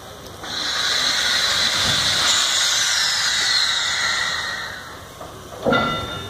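Small steam tank locomotive letting off a loud, steady hiss of steam as it starts to move, fading out after about four seconds. Near the end comes a short shrill tone, the loudest moment.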